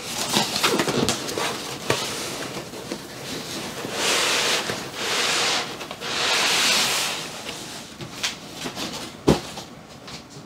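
Cardboard box being handled and a stack of foam packing blocks slid out of it: rustling and scraping, with two long scraping swells in the middle as the foam drags against the cardboard, and a single sharp knock near the end.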